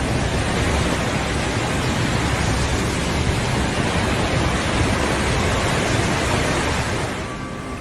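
Storm noise: a loud, steady rushing of wind and rain that starts abruptly at a cut and fades in the last second.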